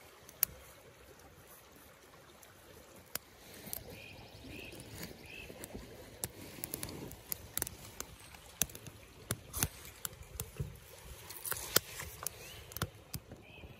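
Wood fire crackling in a titanium Firebox stove, with sharp pops scattered irregularly throughout, over the steady rush of a river.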